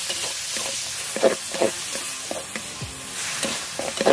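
Chicken sizzling in hot oil in a pan as it is stirred, with a few short knocks and scrapes of the spoon against the pan.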